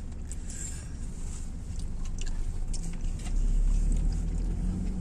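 Car running on the road, heard from inside the cabin as a steady low rumble of engine and road noise that grows louder about three seconds in. A few light clicks sound over it.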